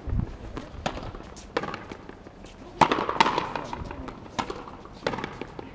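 Frontenis rally: sharp cracks of the hard rubber ball struck by rackets and smacking the fronton wall, about half a dozen in quick succession, the loudest about three seconds in.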